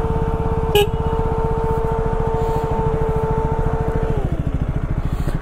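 KTM Duke 200's single-cylinder engine idling steadily, with its radiator cooling fan whirring over it, running because the engine is hot; the fan winds down and stops a little after four seconds in, while the engine keeps idling. A short click about a second in.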